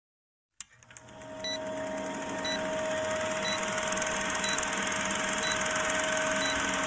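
Film-leader countdown sound effect: after a click, a steady projector-like mechanical whirr fades in, with a short high beep once a second.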